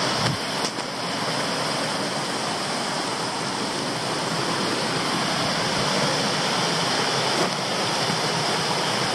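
Steady rush of falling water from a tall waterfall of about 30 metres, heard from near the top of the drop. A few faint clicks sound about half a second in and again about seven seconds in.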